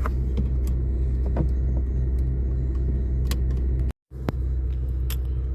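Steady low rumble of the car's engine running, with a few small sharp plastic clicks as the window switch's wiring connector and its locking clip are worked loose. The sound cuts out completely for a moment about four seconds in.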